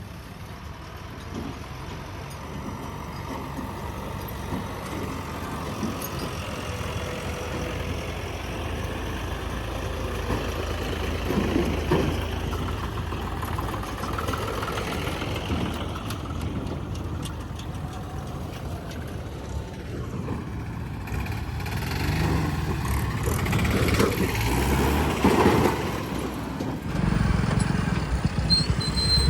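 Heavy vehicle engines running and slowly growing louder, with a louder, closer engine coming in suddenly near the end.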